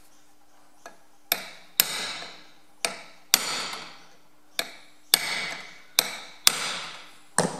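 Ball-pein hammer striking a steel punch, tapping the pressed-steel Sure Seal housing down onto the bearing of a Ferguson TE20 rear axle to level a side that sits high. About nine sharp metal-on-metal blows, mostly in pairs, several leaving a short ring.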